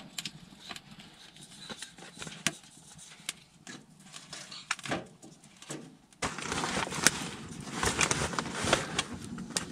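Wood fire crackling and popping in a small tent wood stove. About six seconds in, louder rustling and knocking sets in as split kindling is handled beside the stove.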